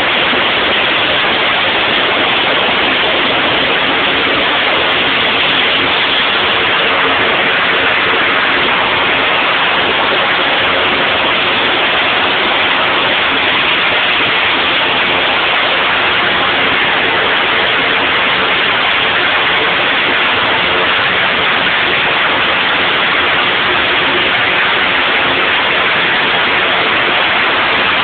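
Pratt & Whitney Canada PT6 turboprop engine running loud and steady during a ground run-up. It is a dense rushing noise that does not change, with faint steady tones underneath.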